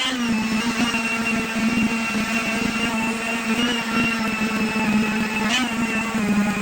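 Small electric hand sander with a dust bag running steadily while sanding drywall patches, a continuous motor whine whose pitch wavers briefly at the start and again about five and a half seconds in.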